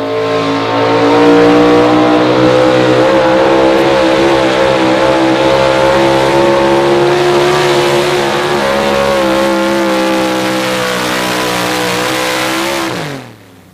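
Chevrolet Pro Stock 4x4 pulling truck's engine running loud at full throttle under load during a pull, its revs held high and nearly steady with small wavers. Near the end the revs fall away quickly and the sound cuts off as the driver lets off at the end of the run.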